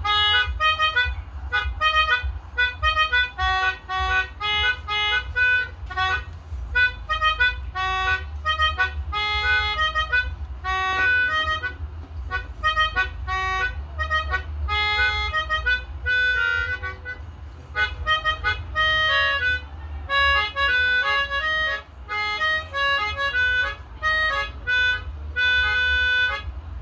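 Pianika (melodica) playing the Basuri 'telolet' bus-horn melody: a long string of short, quick reedy notes with brief pauses between phrases, over a steady low hum.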